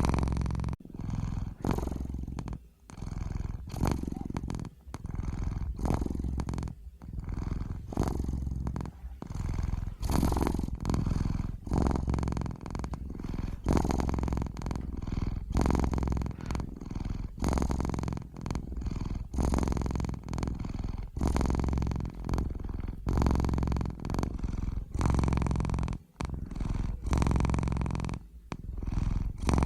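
Domestic cat purring steadily, the low rumble swelling and easing with each breath in and out.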